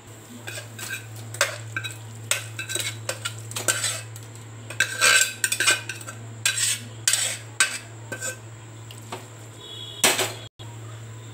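A spoon scraping and clinking against the inside of an aluminium pot in irregular strokes as a mutton and vegetable mixture is stirred, over a steady low hum.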